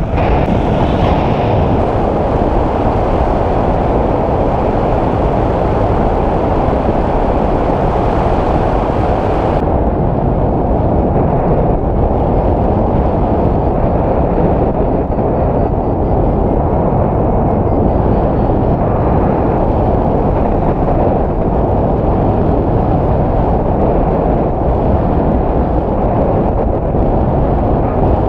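Steady, loud wind rushing over an action camera's microphone during paraglider flight, a dense low rumble with no other clear sound; the higher hiss thins out about ten seconds in.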